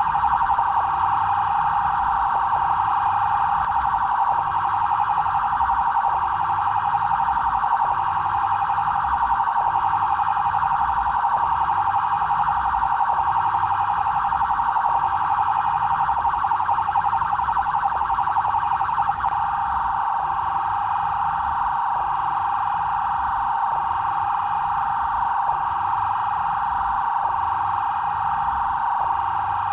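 Electronic police siren of the kind used by São Paulo's BAEP special-actions police, sounding one continuous high siren tone at a steady loud level.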